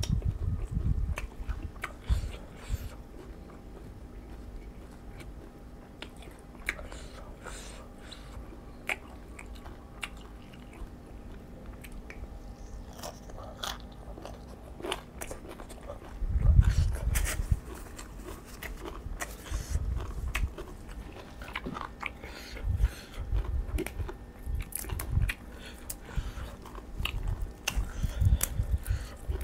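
Close-miked eating: chewing and crunching a mouthful of spicy raw-shrimp salad (koi kung) with fresh raw vegetables, full of wet mouth clicks and smacks. The chewing gets loudest about halfway through and again near the end.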